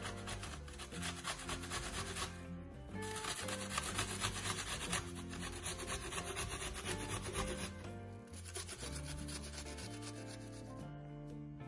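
An onion being grated on a stainless steel box grater: rapid, repeated rasping strokes against the metal teeth, pausing briefly twice and thinning out near the end.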